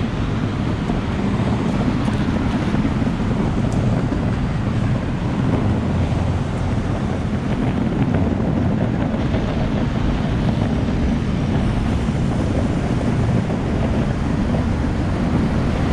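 Steady wind noise on the microphone of a moving rider, mixed with the rumble of small wheels rolling over rough concrete.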